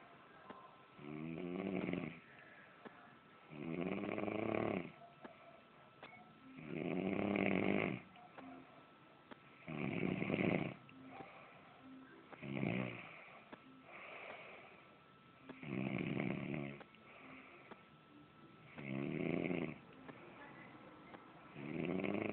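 A man snoring loudly in deep sleep after heavy drinking, one long rasping snore on each in-breath about every two to three seconds, with quiet breathing in between.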